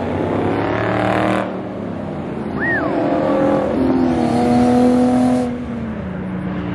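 Performance cars' engines revving hard as they accelerate past, one after another: the first engine note drops away about a second and a half in, a second car pulls hard from about three and a half seconds and cuts off near five and a half. A brief high chirp sounds in between.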